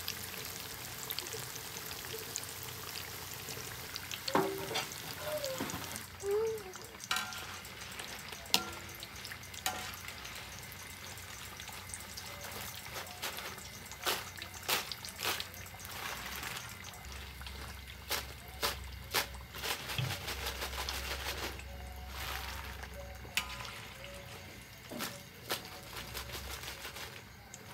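Battered carrot pieces deep-frying in a wok of hot oil, sizzling steadily. From about eight seconds in, a wire strainer clicks and knocks against the wok as the fried pieces are scooped out.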